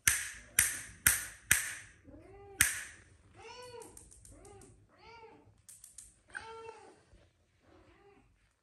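Five sharp clicks, like finger snaps, in the first three seconds, then a kitten meowing: a string of short meows, each rising and falling in pitch.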